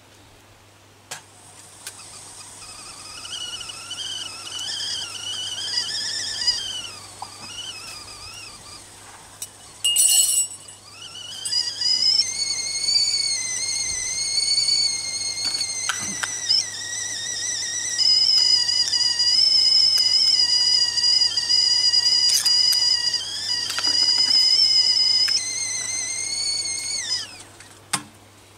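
Steel stovetop kettle whistling on a small wood-fired camp stove, several high pitches at once. The whistle wavers at first, breaks off for a short clatter about ten seconds in, then comes back louder and steady, and falls in pitch and dies away near the end.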